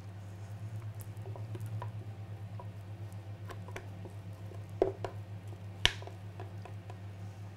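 Thick, sticky blended mixture being scraped and shaken out of an Optimum 9400 blender jug into a plastic bowl with a spatula: soft squishing and scraping, with two sharp knocks of the jug about five and six seconds in. A low steady hum runs underneath.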